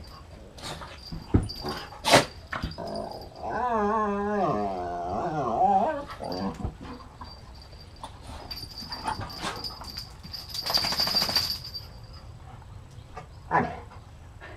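Two dogs, a Rhodesian Ridgeback and a smaller white dog, play-fighting on a sofa. There is scuffling with a few sharp knocks, a long wavering whine-growl from about four to six seconds in, and a short rough rasping growl about eleven seconds in.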